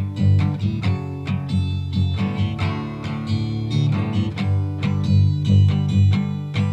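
Background music led by plucked guitar over a steady bass line.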